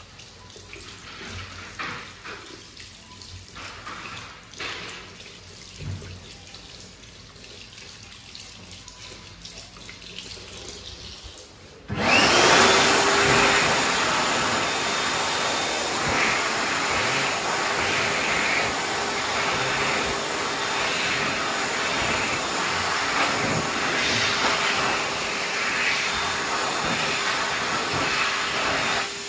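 Tap water running over hands at a washbasin, fairly quiet, for about twelve seconds. Then a Biodrier Biolite hand dryer (a Xinda GSQ87) starts abruptly and runs loud and steady with a constant tone, the airflow wavering as the hands move under it.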